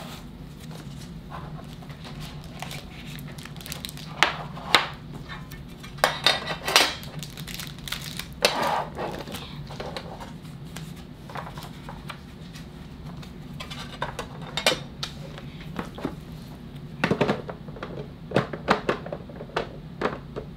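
Handling of a metal trading-card tin and its cards: irregular clinks, taps and short scrapes, bunched in clusters, over a steady low hum.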